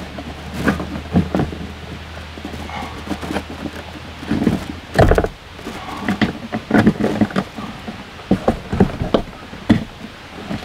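Irregular knocks, clicks and rattles of hands working on a BAL Accu-Slide room's cable pulley bracket and its steel cables, with one heavier thump about halfway through. A steady low hum runs underneath and stops at about the time of the thump.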